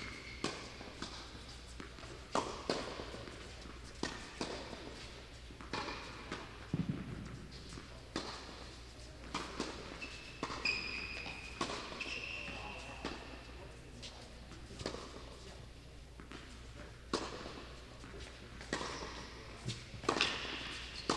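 Tennis ball being struck by rackets and bouncing on the court, irregular sharp knocks every half second to second and a half. Shoes squeak briefly on the court surface a little before the middle.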